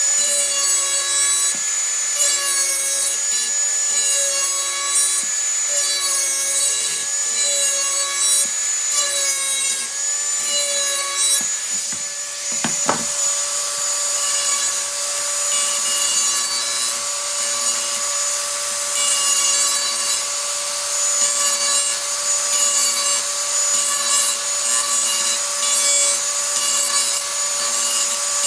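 Electric grinding tool running with a steady high whine while grinding the edge of a steel garden tool in repeated passes, about one a second, to sharpen it.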